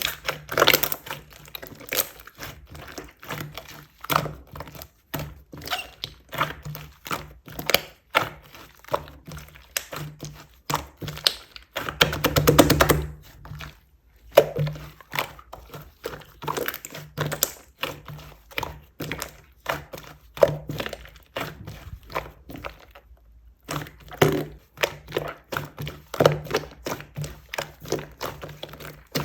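Slime being pressed and squished by hand, making a dense run of small clicks and pops. About twelve seconds in comes a louder, longer stretch of rapid popping, and there is a short pause about twenty-three seconds in.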